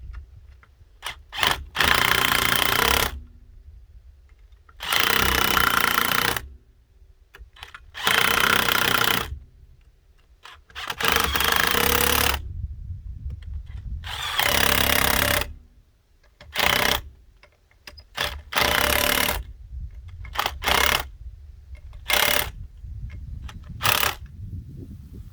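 Impact wrench running in repeated bursts of about a second each, about ten in all, the last few shorter, with short pauses between them.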